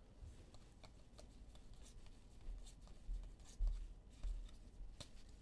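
Faint rustling and light ticks of basketball trading cards being handled, with a few soft low thumps about two to four seconds in.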